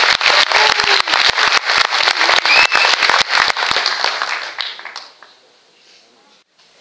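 Audience applauding, with a cheer or two in the clapping. The applause thins out about four seconds in and has died away by about five seconds.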